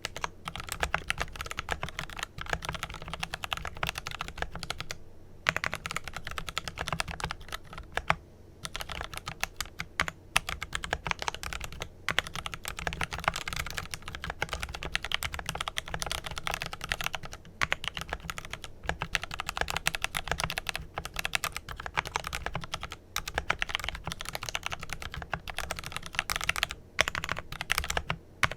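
Continuous fast typing on a Glorious GMMK Pro mechanical keyboard with lubed Kailh Pro Purple tactile switches and PBT keycaps, a dense run of key clacks broken by a few short pauses.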